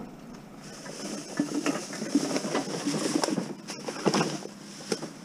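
Black plastic garbage bags rustling and crinkling, with small knocks and clatters as items in the back of a vehicle are shifted by hand: an uneven run of clicks and crackles that stops near the end.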